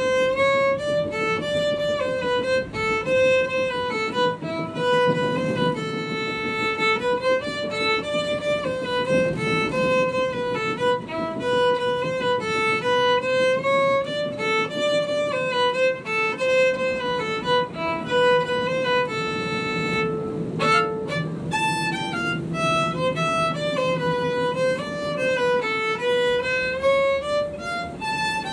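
Background music: a fiddle melody moving up and down in steps over a lower accompaniment.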